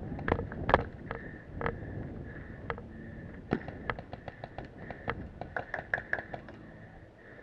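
Paintball markers firing: a few single pops in the first second, then a fast string of shots at about five a second for around three seconds.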